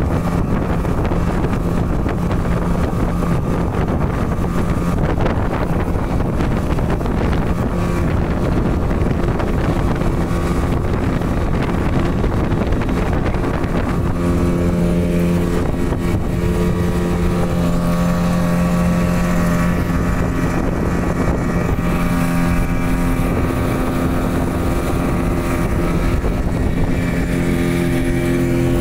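Motorboat engine running steadily at speed, with wind buffeting the microphone. The engine's steady hum stands out more clearly about halfway through.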